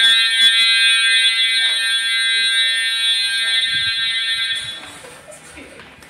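Hotel fire alarm horns sounding a loud, unbroken steady tone. This is the continuous 'California code' signal, not temporal pulses. The horns drop away about four and a half seconds in.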